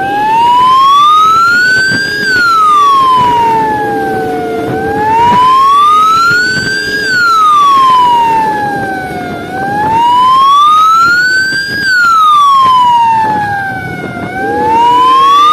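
Fire truck siren wailing loudly, its pitch sliding slowly up and back down about every five seconds, three and a half times over.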